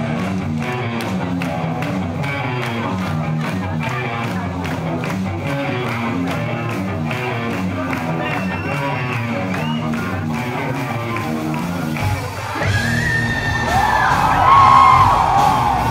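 Rock band playing with guitars and a steady pulsing bass line. About twelve seconds in the music changes and a high, bending lead line comes in, the loudest part of the passage.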